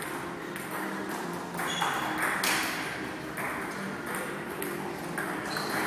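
Table tennis ball being hit back and forth in a rally, sharp ball-on-paddle and ball-on-table clicks about once a second, with a short echo off the hall.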